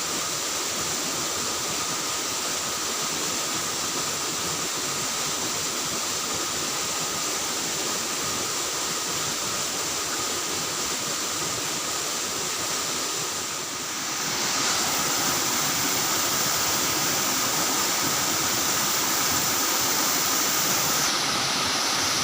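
Steady rush of flowing water with a thin, steady high tone running over it. It grows somewhat louder about two thirds of the way in.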